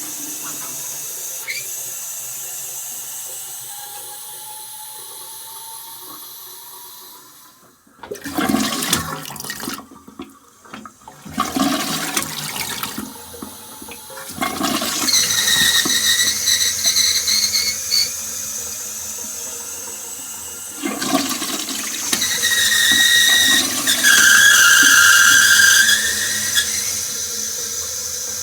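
Daiwa Kasei Sofia FZ500 simplified-flush toilet being flushed again and again: water running and dying away, then repeated surges of rushing water with clunks. Twice the discharge carries a shrill whistling tone, the abnormal noise that high water pressure makes in this toilet.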